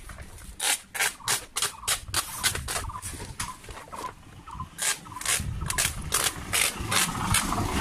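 Sharp knocks, two to four a second and unevenly spaced, over a low rumble. They come thicker and louder in the second half.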